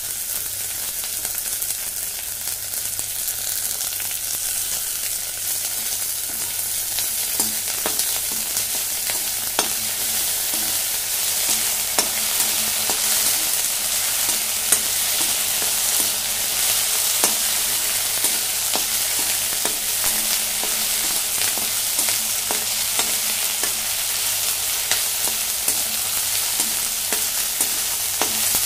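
Chopped onions sizzling in hot mustard oil in a metal kadai. From about seven seconds in, frequent sharp scrapes and taps of a perforated metal spatula against the pan are heard as the onions are stirred.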